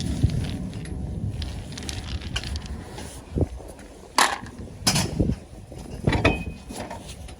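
Several separate knocks and clanks of tools and car parts being handled during wheel and brake work, over a low steady rumble.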